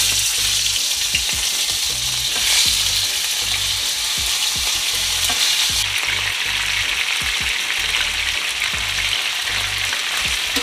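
Pieces of seasoned oxtail sizzling hard as they hit the hot pot to brown. The sizzle starts suddenly, flares up a couple of seconds in, then settles to a steady hiss.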